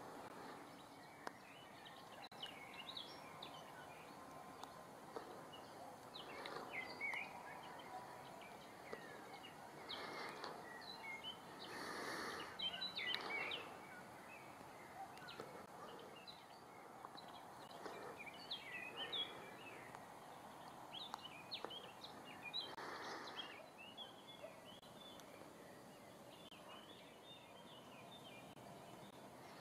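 Faint meadow ambience with small birds chirping and twittering in short scattered phrases, and a few brief swells of rushing noise.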